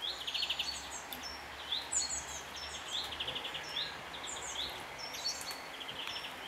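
Young blue tits calling repeatedly: short high notes sweeping upward, mixed with quick trills of rapid notes.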